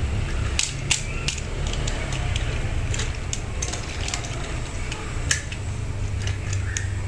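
Battery-powered toy train running: a steady low motor hum with irregular plastic clicks and clacks.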